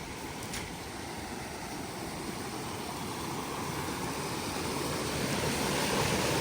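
River water rushing over stones, a steady noise that grows slowly louder.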